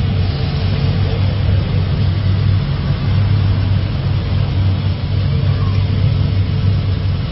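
Engine of a 1950 Chevrolet 3100 pickup rat rod idling steadily through a loud exhaust, a deep, even note that holds the same pitch throughout.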